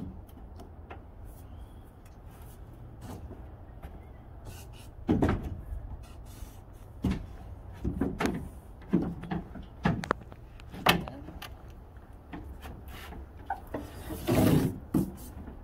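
Irregular clunks and knocks, about a dozen, as things are moved about and set down in an aluminum jon boat, with the loudest cluster near the end, over a steady low hum.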